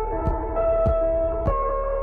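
Background music: held instrumental notes over a soft, steady beat of about one stroke every 0.6 seconds.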